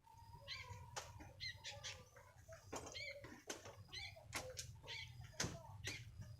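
Sooty-headed bulbul giving short chirping calls and sliding notes, among many sharp clicks, over a steady low hum.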